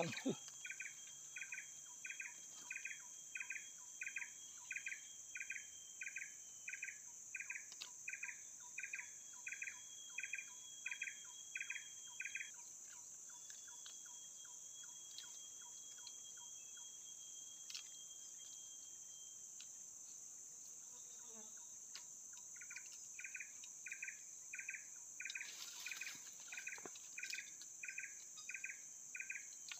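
Insect chirping in an even rhythm of about two chirps a second, stopping for about ten seconds midway and then starting again, over a steady high-pitched insect drone.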